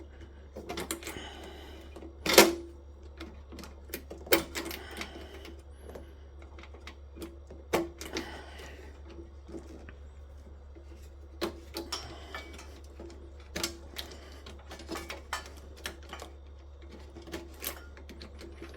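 Hand tools working on the metal parts of a solar inverter being dismantled for scrap: irregular clicks, taps and short scrapes, with one sharper knock about two seconds in.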